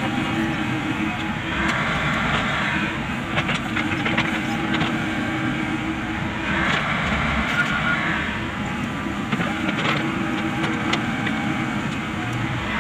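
Komatsu PC78US excavator working: its diesel engine runs steadily under load along with the hydraulics, swelling several times for a second or so as the boom lifts and swings. Short metallic knocks and clanks from the bucket and arm are scattered through it.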